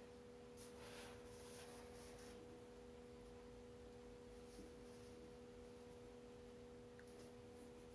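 Near silence: a faint steady hum of a few low tones, with faint scratching of a marker on paper in the first couple of seconds.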